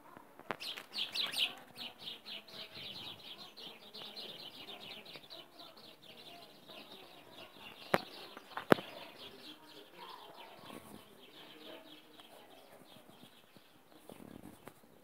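Small birds chirping in rapid, continuous twittering that is loudest in the first couple of seconds and fades out after about nine seconds. Two sharp clicks come about eight seconds in, less than a second apart.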